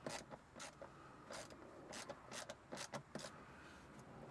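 Faint, irregular clicks and scrapes of a 3/8-inch socket wrench on an extension turning out the square drain plug of a Cummins 6.7 oil pan, about ten small ticks spread through.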